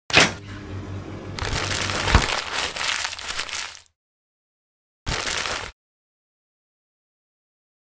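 A fridge door pulled open with a sharp click and a low hum, then dry straw stalks crackling and rustling for a couple of seconds with one louder crunch, and a short crackle again about five seconds in.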